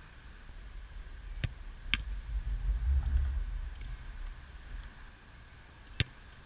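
Sharp thuds of a football being struck: two about half a second apart about one and a half seconds in, and one more near the end, over a low rumble.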